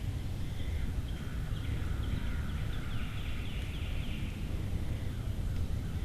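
Low wind rumble on the microphone, with a bird calling about a second and a half in: a quick run of high notes, each sliding downward, lasting about three seconds.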